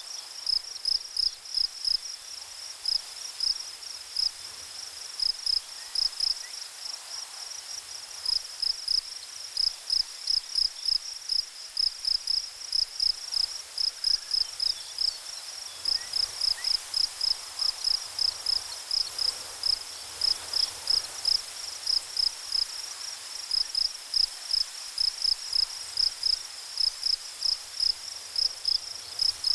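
A chirping insect repeating short, high-pitched chirps at an even pace, about two to three a second, without a break.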